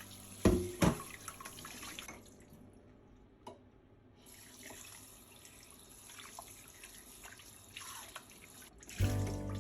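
Tap water running into a sink, with scattered drips and small knocks; two sharp knocks about half a second in.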